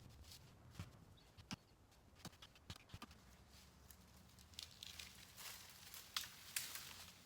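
Faint crackling and rustling of dry leaf litter and twigs, with scattered sharp snaps and a denser run of crunching from about five and a half seconds in.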